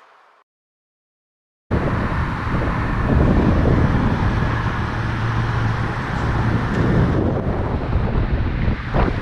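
A car driving, heard as wind buffeting on the microphone over a steady low road and engine rumble. It starts suddenly after a short silence, about a second and a half in.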